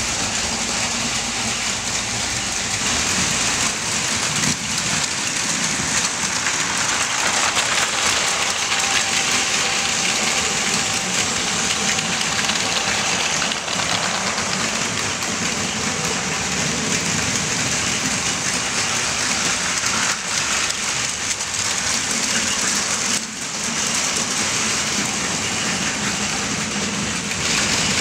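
Several Plarail Advance battery-powered toy shinkansen trains running on plastic track: a steady whirr of small electric motors mixed with the rattle of wheels on the rails.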